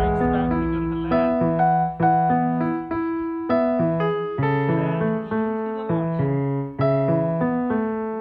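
Background music: a slow solo piano passage, notes struck about once a second and left to ring.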